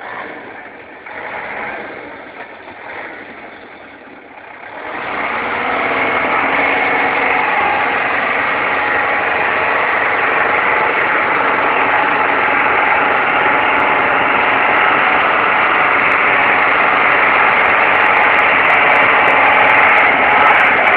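Mercedes-Benz 814 light truck's diesel engine running while the truck slides sideways on snow, quieter and uneven for the first five seconds, then loud and held at steady revs.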